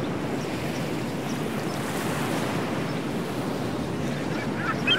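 Small waves washing in over a sandy shore in a steady wash. Just before the end, a few brief high chirping sounds come over it.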